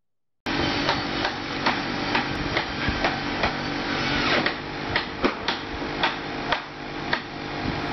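Dense clatter with repeated sharp knocks, roughly two a second at uneven spacing, starting abruptly about half a second in.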